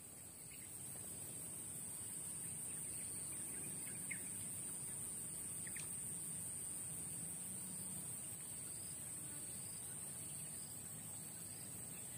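Faint steady high-pitched buzz of insects in the swamp vegetation, with a few faint short bird chirps.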